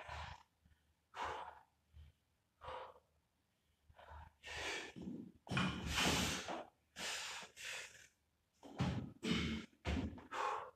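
A man breathing hard from exertion while lifting a barbell: a string of short, sharp breaths and gasps about one to two a second, loudest about halfway through as the bar comes up to his shoulders, and coming faster near the end with the bar overhead.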